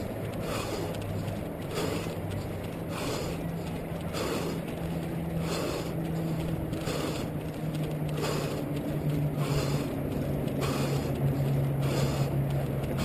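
A runner's stride picked up by a head-mounted GoPro Hero 2, a regular rhythmic noise about one and a half times a second, over steady road noise. A faint low drone slowly falls in pitch.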